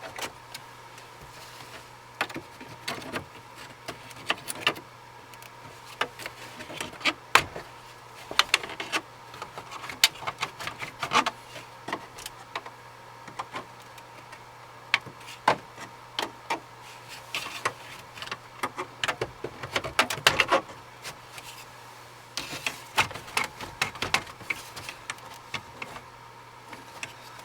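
Plastic dashboard bezel being pried off: irregular clicks, snaps and scrapes of the plastic trim and its retaining clips, over a steady low hum.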